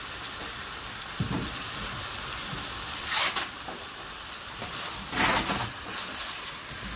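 Salmon heads, onion, garlic and ginger sizzling in a stainless steel pot with a steady hiss. A few louder scraping strokes, about three and five seconds in, come as the pieces are stirred with a spatula.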